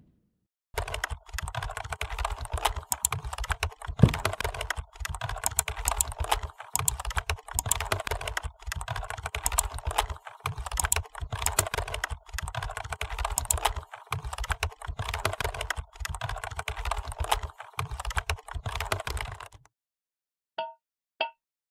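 Fast, continuous typing on a computer keyboard, dense irregular key clicks that stop shortly before the end. Two short pitched blips follow.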